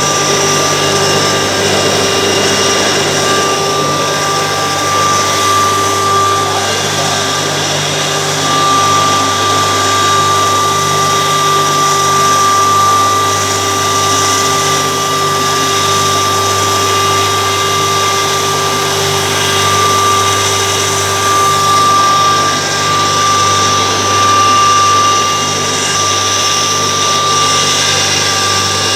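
3 HP, 2800 rpm high-speed pulverizer running steadily with a high whine as it grinds rice through a fine sieve into fine flour.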